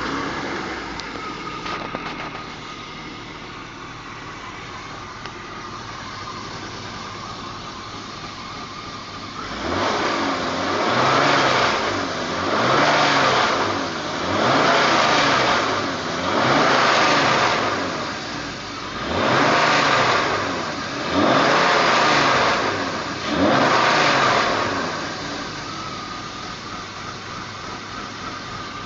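BMW 325i E36's 2.5-litre straight-six engine idling, then revved seven times in quick succession, each rev rising and dropping back, before settling to idle again. The owner reports an air-suction noise at idle and a vibration noise around 3000 rpm.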